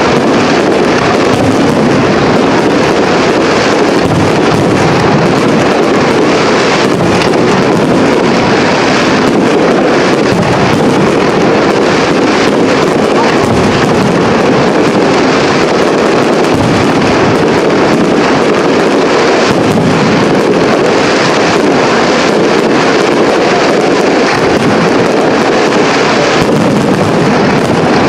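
Aerial firework shells bursting in a dense, unbroken barrage with crackling, loud throughout.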